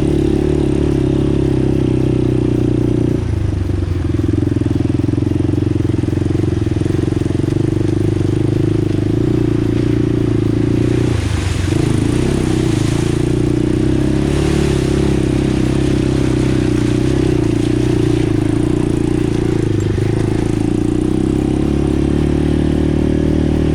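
ATV engine running steadily as the quad rides along a trail, with three brief dips in engine tone where the throttle eases or a gear changes.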